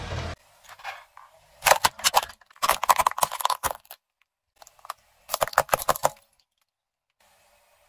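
Brittle objects cracking and crunching under a car tyre, in three separate bursts of rapid sharp cracks.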